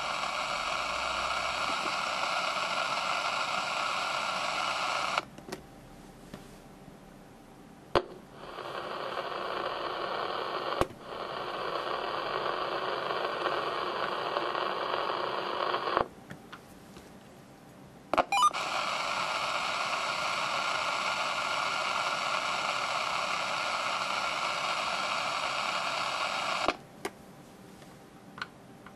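Open-squelch AM receiver hiss from two CB radios at full volume with no antenna, played in turn. A President Harry II gives a brighter, higher hiss for about five seconds and again near the end, and a Superstar gives a lower, duller hiss in between. Each change comes with a click and a short quieter gap. The two hiss at a similar level, normal for ordinary radios rather than a sign of an unusually noisy set.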